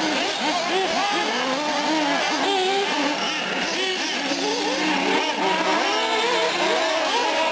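Several nitro-powered 1/8-scale RC cars racing, their small glow-fuel engines revving up and down together, pitch rising and falling as they accelerate and lift through the corners.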